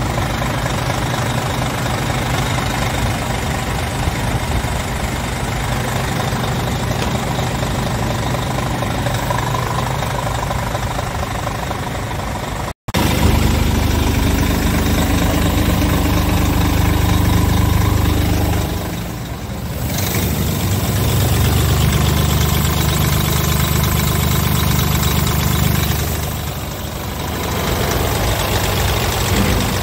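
Scania R tractor unit's diesel engine idling steadily. The sound breaks off briefly a little under halfway, then comes back with a louder, deeper drone that eases off twice for a moment.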